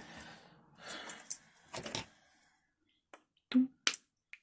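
A few sharp clicks and taps from parts and tools being handled on a workbench. The loudest two come close together about three and a half seconds in.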